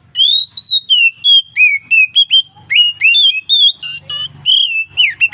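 Oriental magpie-robin (kacer) singing loudly in an unbroken run of clear whistled notes that slide up and down, with a couple of harsh rattling notes about four seconds in.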